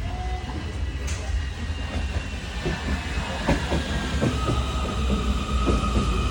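Munich U-Bahn train running, with a steady low rumble and a thin electric whine that grows stronger about two-thirds of the way in. A string of short clicks from the wheels comes in the second half.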